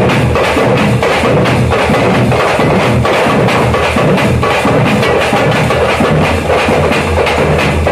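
A Tamil folk drum troupe playing together: a large rope-laced barrel drum and several frame drums beaten with sticks, in a loud, dense, steady rhythm.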